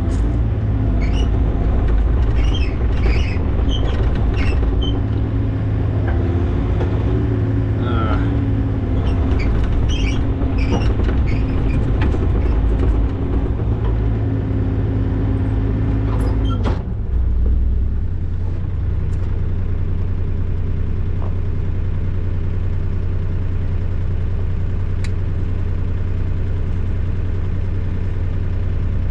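Engine of a compact construction machine such as a skid steer or mini excavator, running steadily, with scattered light clinks and knocks over the first dozen seconds. About two-thirds of the way through, a sharp knock comes and the engine's note changes and settles.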